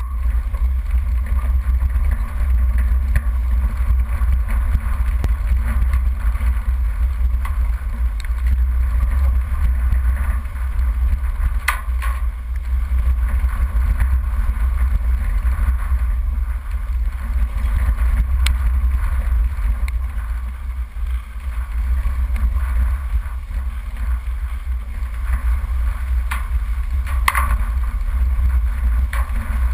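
Off-road vehicle driving slowly over a rough dirt track: a steady deep rumble of engine and tyres, with a few sharp knocks from bumps in the track.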